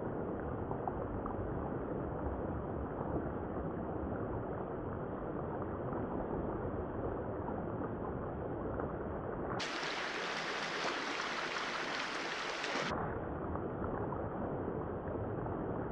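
Steady rush of a shallow, riffling creek, muffled with a low rumble. For about three seconds past the middle it comes through clear and bright, then turns muffled again.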